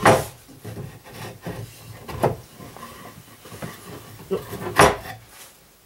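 Wooden panels being handled on a table: rubbing and scraping of particle board with several knocks, the loudest near five seconds in.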